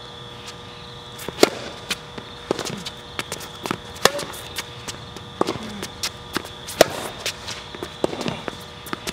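Tennis rally on a hard court: rackets striking the ball and the ball bouncing, a string of sharp pops about every half second, with footsteps between.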